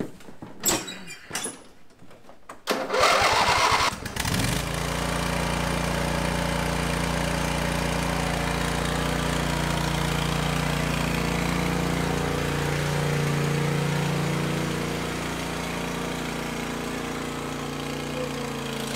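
A few knocks, then the Cub Cadet LT1024 lawn tractor's Briggs & Stratton V-twin engine cranks briefly about three seconds in, catches and runs steadily as the tractor drives off, growing a little fainter near the end.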